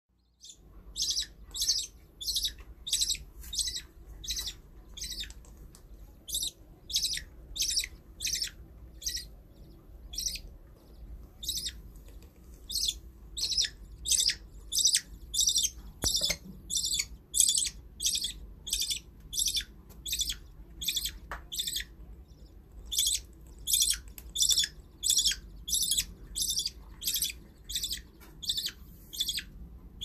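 Budgerigar chick begging while an adult feeds it: a steady run of short, high-pitched chirps, about two a second, broken by a couple of brief pauses.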